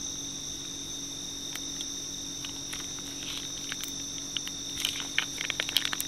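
Crickets calling in a steady high trill over a faint low hum. Small clicks and crinkles from a plastic sauce sachet being squeezed over a plate come in from about a second and a half in, and grow more frequent in the second half.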